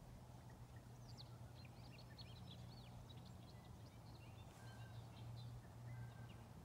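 Faint songbirds chirping and twittering in quick runs of short notes, with a few short whistled notes near the end, over near silence and a low steady hum.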